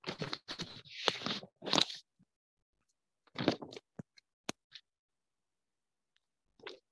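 Computer keyboard typing picked up by the computer's microphone: irregular clusters of key presses in the first two seconds, another brief run at about three and a half seconds, a couple of sharp clicks soon after, and one more short burst near the end.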